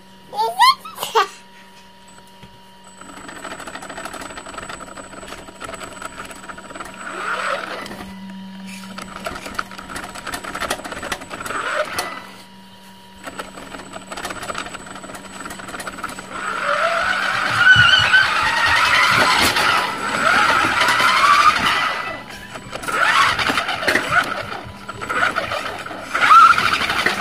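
A motorized Tonka Chevron toy tow truck's drive motor and gears whine as it drives, stopping and starting a few times. The whine rises in pitch as it speeds up after the longer pause. Two short, sharp squeals sound about a second in.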